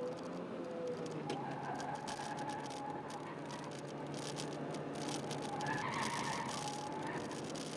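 Honda Jazz 1.3 four-cylinder engine pulling steadily under load at track pace. Two spells of tyre squeal from its Michelin Pilot Sport 3 tyres, about a second in and again from about five seconds, as the car is pushed through corners.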